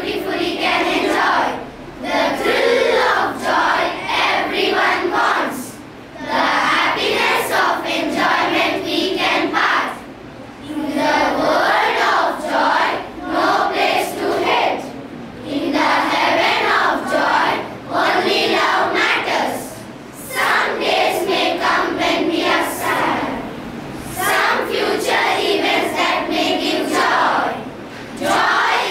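A large group of children reciting a poem in unison, many voices together in rhythmic phrases of a few seconds each, with brief pauses between lines.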